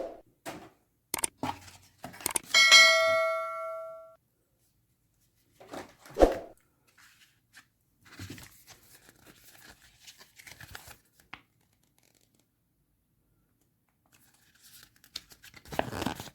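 Packaging being opened and handled: sharp clicks and tearing, then rustling and handling noise. About two and a half seconds in, a single bright ringing ding fades out over a second or so.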